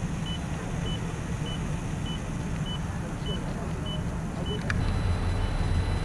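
Short high electronic beeps evenly spaced at about a hundred a minute, the pace of a defibrillator's CPR metronome during chest compressions, over a steady low engine rumble. The beeps stop about four and a half seconds in, where a click gives way to a louder low drone.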